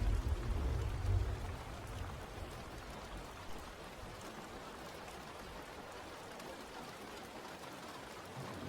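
Steady rain falling, an even hiss of drops. A deep low rumble at the start fades away over the first two seconds.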